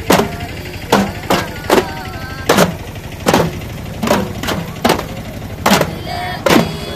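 Daf frame drums struck together in a repeating beat, a sharp hit every half second to a second, with voices chanting in unison between the beats.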